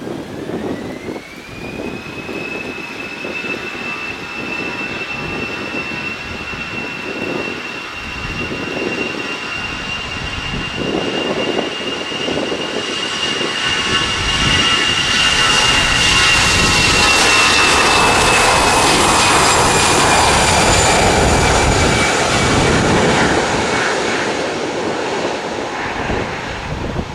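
Airbus A320-214 jet's CFM56 turbofans spooling up to takeoff thrust, a whine rising in pitch in the first two seconds, then the jet noise building to its loudest past the middle as the airliner passes, the whine dropping slightly afterwards. Wind rumbles on the microphone throughout.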